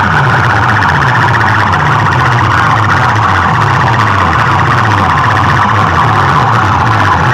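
Very loud, distorted output from truck-mounted stacks of horn loudspeakers in a DJ sound-box competition: a harsh siren-like wail over repeated falling bass sweeps.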